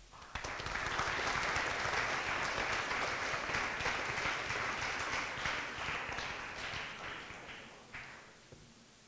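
A large audience applauding: the clapping swells up within the first half second, holds steady, then thins out and dies away about eight seconds in.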